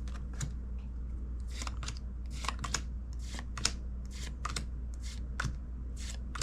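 Pokémon trading cards being slid and flicked through one at a time, a short crisp card-on-card swipe roughly twice a second.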